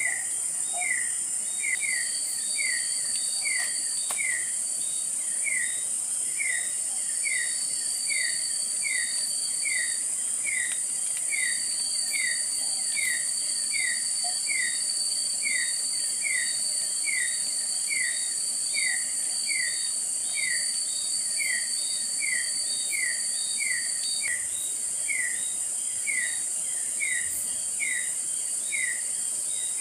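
Forest insects: a steady high-pitched insect drone, with a short falling chirp repeated evenly, just under twice a second.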